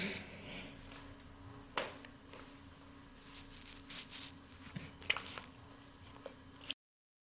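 Fingers rubbing stubbly skin close to the microphone: faint scratching and rustling with a few sharper clicks, over a steady low hum. The sound cuts off abruptly near the end.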